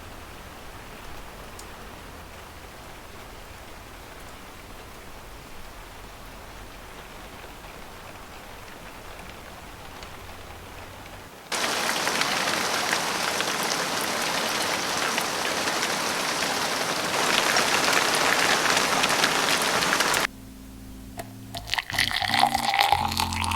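Steady rain falling, faint at first, then much louder and closer after an abrupt change about eleven seconds in. The rain cuts off suddenly near the end, and soft music begins.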